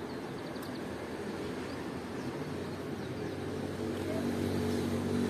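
A steady low mechanical hum with several even tones, growing louder over the second half. A few faint small clicks sound near the start.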